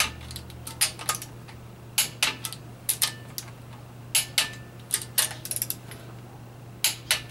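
Sharp metallic clicks, mostly in close pairs every second or so, from a click-type torque wrench reaching torque on the bolts of a Honda D17A2 engine's cylinder head.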